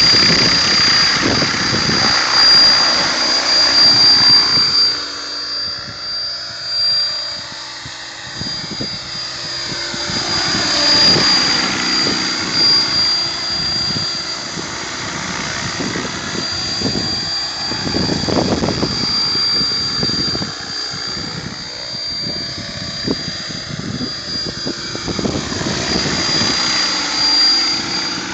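Mikado Logo 600 electric RC helicopter in flight: a steady high-pitched whine over the whoosh of the spinning rotor blades, swelling and fading as the helicopter moves back and forth.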